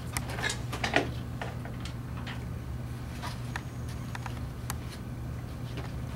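Paper drape and plastic kit packaging crinkling and rustling under gloved hands, a scattering of small irregular clicks and crackles over a steady low hum.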